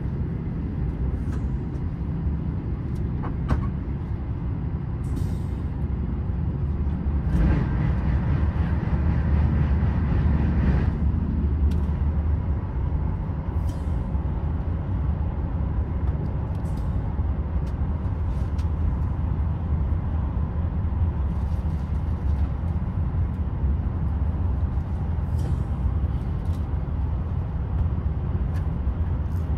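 TGV high-speed train running, heard from inside the coach: a steady low rumble of wheels on the rails, with scattered faint ticks. About seven seconds in, a louder rushing noise swells for a few seconds and then settles back.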